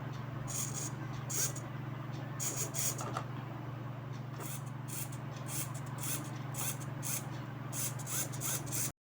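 Small hobby servo motor whirring in many short, irregular bursts as a joystick swings it back and forth, over a steady low hum. The sound cuts off suddenly near the end.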